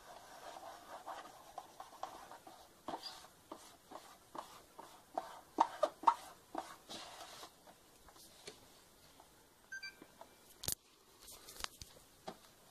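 Fingers rubbing and tapping a vinyl sticker down onto an Xbox's plastic case: soft scraping at first, then a run of sharp clicks and taps, loudest about six seconds in. A short electronic beep sounds near the end, followed by one sharp click.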